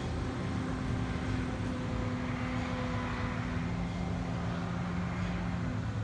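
Combine harvester running out of sight: a steady engine drone with a constant hiss.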